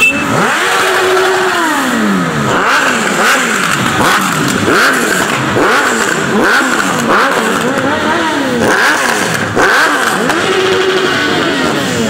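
A stream of motorcycles riding past one after another, their engines revving, each engine's pitch rising and then falling as it goes by, several overlapping at once.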